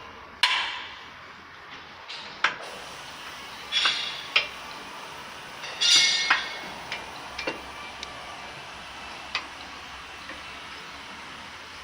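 Sharp metal clanks and knocks, some ringing briefly, spaced irregularly: a Peugeot rear axle being set into its assembly machine and the machine's latches shut. The loudest come about half a second in and around six seconds in.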